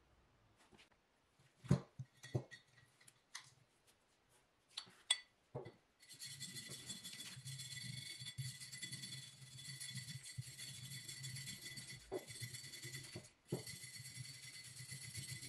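Several separate metallic clinks and knocks as a rusty steel axe head is handled in a plastic bucket. From about six seconds in, a steady scratchy sound of a hand wire brush scrubbing rust off the vinegar-soaked axe head, with a brief break near the end.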